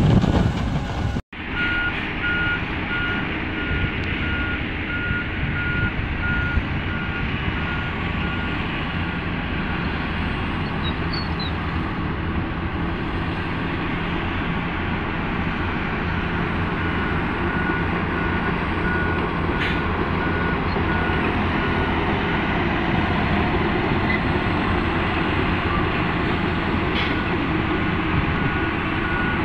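Diesel engines of heavy earthmoving machinery, a crawler bulldozer and a dump truck, running with a steady low rumble. A reverse-warning alarm beeps evenly over it and fades out for a while in the middle.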